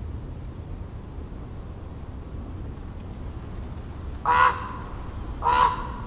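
Common raven calling twice, two hoarse croaks about a second apart near the end, over a steady low rumble of the ocean in the distance.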